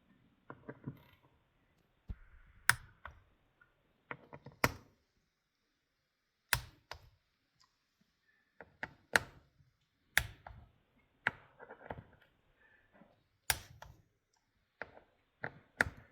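Click-type torque wrench clicking sharply, one bolt after another, as the transmission valve body bolts reach 60 inch-pounds, with fainter ratchet and tool clicks in between.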